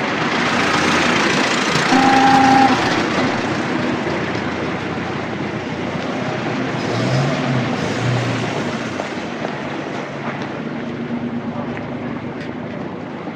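1920s-style city street ambience: a steady rush of traffic, with a horn sounding about two seconds in and two short low honks around seven to eight seconds in.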